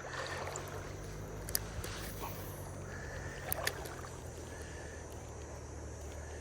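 Steady riverside background noise with a low hum, and a few light clicks about a second and a half in and again near the middle.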